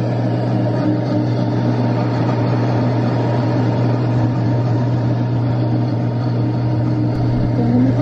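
Instant Pot Ace high-power blender running steadily on a high speed setting, its motor giving an even, loud hum as it purées a thin creamy chipotle sauce to a smooth liquid.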